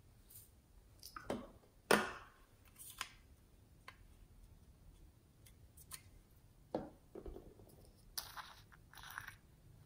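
Small plastic containers and toys being handled: scattered light clicks and knocks, then two short rustling sounds near the end as a small plastic jar of glitter is handled.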